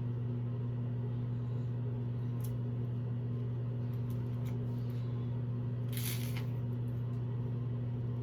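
A steady low hum throughout, with faint light rustles and clicks and a brief hiss about six seconds in.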